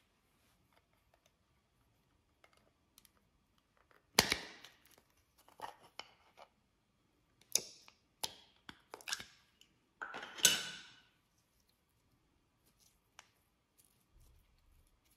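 Clear slime being squeezed and stretched by hand, giving a handful of sharp pops and clicks. The loudest come about four seconds in and again near ten seconds, with smaller ones between.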